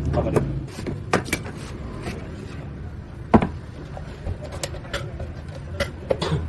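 Scattered clicks and knocks of hand work on a vehicle, with one louder knock about three and a half seconds in.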